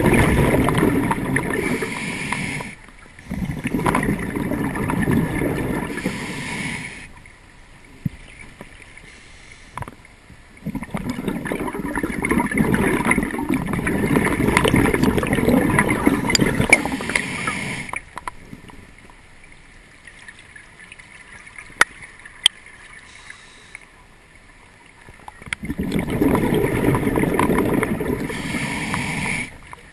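Scuba diver's exhaled bubbles rushing and gurgling past the camera underwater, in several long exhalations with quieter stretches between them. A couple of sharp clicks fall in a quiet stretch about two-thirds of the way in.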